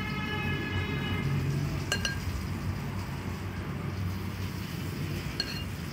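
Two light clinks against a ceramic plate, one about two seconds in and one near the end, each with a brief high ring, as kebabs are set down on it. A steady low hum runs underneath.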